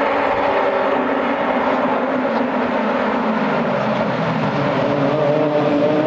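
A pack of open-wheel single-seater race cars running together, their high-revving engines overlapping. The engine notes drop in pitch about halfway through, then climb again near the end.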